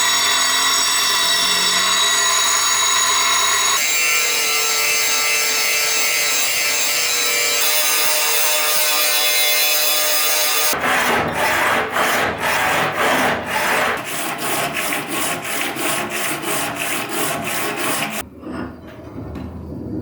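Leaf-spring steel being worked for a knife blank. First a steady grinding sound with a high whine runs for about ten seconds. Then, from about halfway, comes a run of rhythmic back-and-forth hand strokes on the metal, about two a second.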